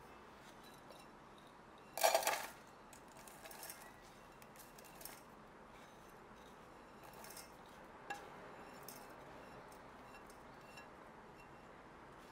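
Kitchenware clinking: a short rattle of clinks about two seconds in, then a few lighter scattered taps of utensils against dishes.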